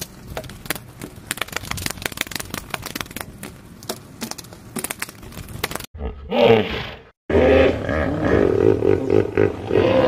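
Dense crackling and clicking for about six seconds. Then a loud animal roar, followed by a continuing run of calls, which play over a grazing hippopotamus.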